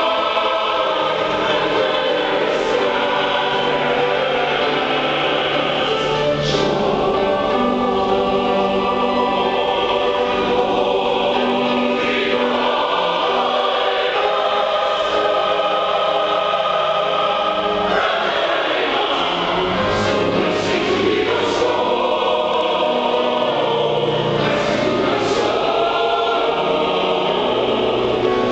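Large mixed choir of men's and women's voices singing a sacred choral anthem, sustained notes in full harmony, in the reverberant acoustics of a cathedral.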